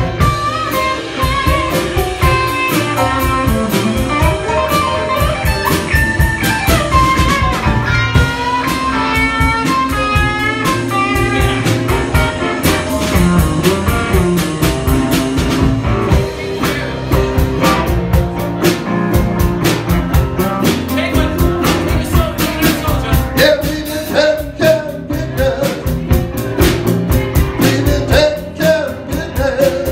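Live rock band jamming: electric guitar lead lines over a steady drum beat.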